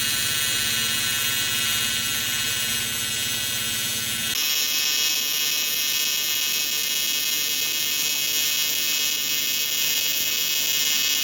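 Electric welding arc buzzing steadily and loudly on aluminum. Its tone changes about four seconds in.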